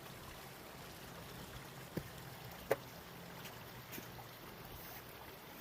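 Faint, steady outdoor noise with a few short clicks, the sharpest a little under three seconds in.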